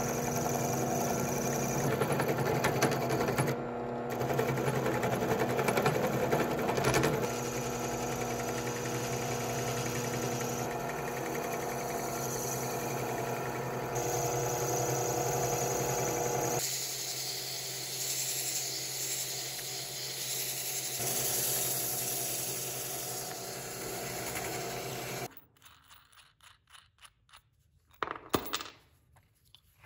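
An electric power tool's motor running steadily with a low hum, then cutting off about 25 seconds in; a few sharp knocks follow near the end.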